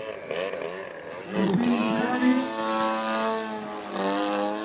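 Model airplane engine driving a wooden propeller in flight. Its pitch swings rapidly up and down for the first second, then holds a steady high note with a short dip near the end.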